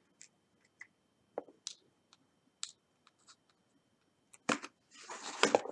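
Faint, irregular clicks of metal tweezers picking diamond-painting drills out of a plastic tray and setting them down. There is a sharper click about four and a half seconds in and a brief scratchy noise near the end.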